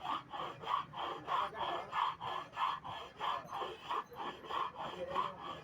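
A hand tool stroked back and forth, scraping or rasping at a steady rhythm of about three strokes a second.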